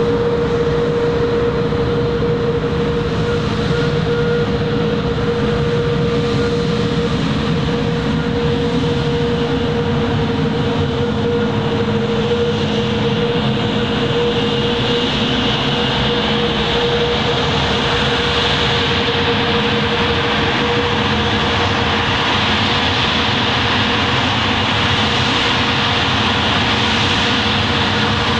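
Sukhoi Superjet 100's twin PowerJet SaM146 turbofans running at taxi power, a steady jet whine with a constant hum-like tone. The hiss grows brighter about halfway through as the jet taxis closer.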